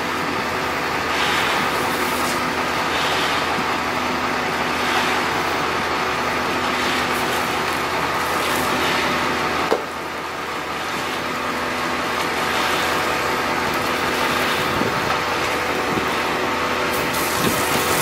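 Concrete mixer truck's engine running steadily, with a swelling rush of noise about every two seconds and a single sharp knock about halfway through.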